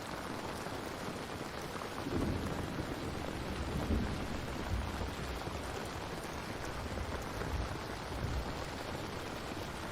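Steady rain, with a low rolling rumble of thunder from about two seconds in until near the end.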